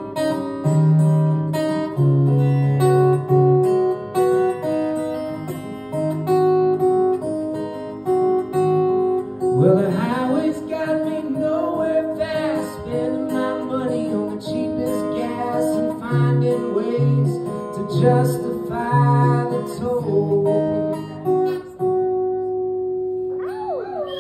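Live solo acoustic guitar, picked notes and chords. About ten seconds in, a man's voice starts singing over it for roughly ten seconds, and near the end a final chord is left ringing.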